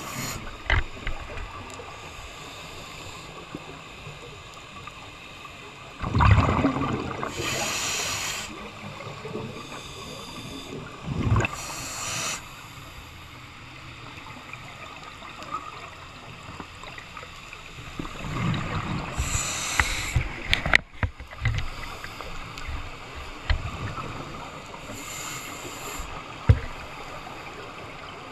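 Scuba divers breathing through regulators underwater: a hiss on each inhale and a rush of exhaled bubbles, repeating every several seconds over a steady low background.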